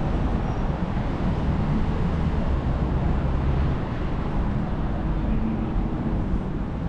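Street traffic: a steady low rumble of car engines, easing slightly about four seconds in.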